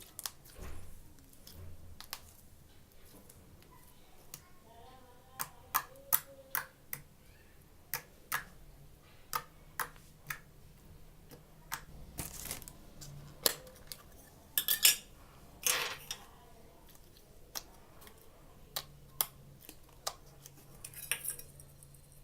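Irregular sharp clicks and taps of slime and its containers being handled, with a short cluster of louder clicks a little past the middle.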